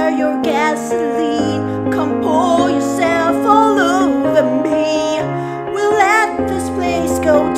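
Woman singing a slow acoustic pop cover with sustained, gliding vocal lines over steady piano chords.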